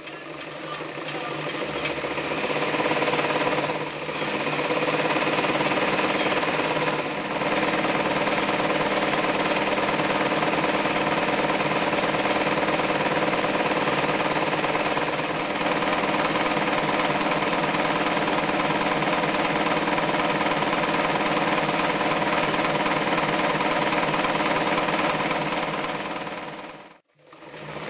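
Winfield FW-161 electric sewing machine, made by Janome, running at a steady speed as it stitches through fabric. The freshly restored machine is being tested. It picks up speed over the first couple of seconds, eases off briefly twice early on, and stops about a second before the end.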